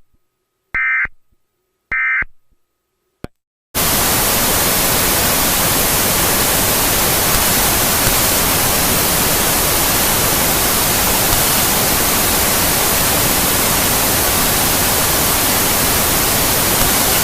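Two short bursts of Emergency Alert System end-of-message data tones about a second apart, then a click. About four seconds in, loud steady white-noise static starts and holds.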